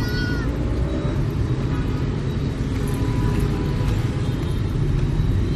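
Steady city traffic noise: a low, even rumble of motorbikes and cars passing on the road, with a few short high tones right at the start.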